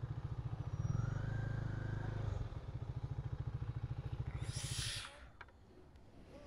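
Motorcycle engine running with a steady low pulsing beat, which cuts off abruptly about five seconds in. A short hiss comes just before it stops.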